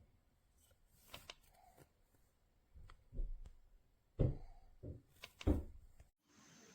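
A few soft knocks and rustles at irregular intervals, the loudest about four and five and a half seconds in, then an abrupt cut to a faint steady hiss near the end.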